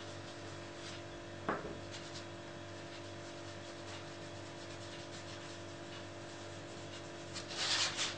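Hands handling a sheet of paper on a cutting mat: one sharp tap about one and a half seconds in and a short paper rustle near the end, over a steady low hum.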